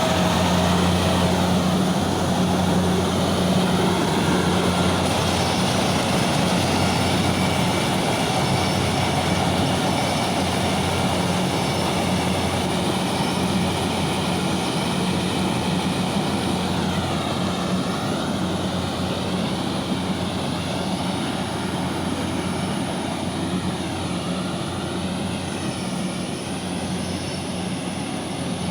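Kubota DC68G combine harvester running under load while harvesting rice, a steady low diesel engine drone with the whirr of its threshing machinery, slowly getting a little quieter.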